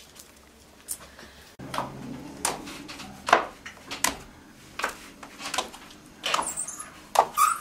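Footsteps coming down a wooden staircase, a sharp step every half second or so, after a short stretch of quiet room tone.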